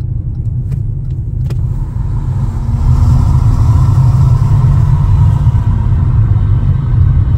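Car's engine and tyre noise on the highway, heard from inside the cabin as a steady low rumble. It grows louder about two and a half seconds in as the car speeds up behind a semi-truck.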